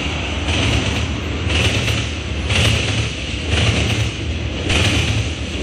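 Freight train of tank cars rolling past: a steady low rumble of wheels on rail, with a higher hiss that swells about once a second as the cars go by.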